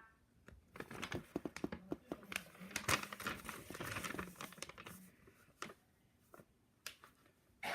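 Close handling noises: a quick run of small taps, clicks and crinkly rustles for about four seconds, then only a couple of single taps near the end.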